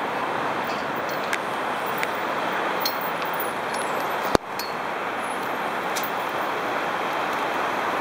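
Steady city traffic noise at a busy intersection, with a few faint metal clinks of a steel chain being wrapped around a pole and bicycle frame. One sharp knock about four seconds in.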